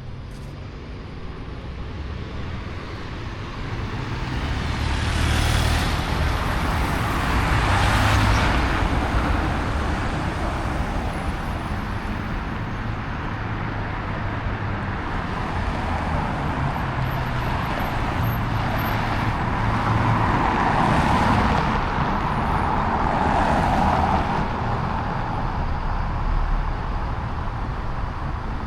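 Road traffic: cars driving past over a steady engine rumble, the noise swelling and fading as each goes by, with the loudest passes about a third of the way in and again about three quarters of the way through.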